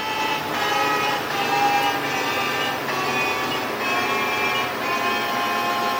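Prototrak 1840 CNC lathe's spindle and headstock running at speed: a steady mechanical hum with several whining tones that shift in pitch every second or so. It runs smoothly and sounds very good, the sign of a lathe in sound working order.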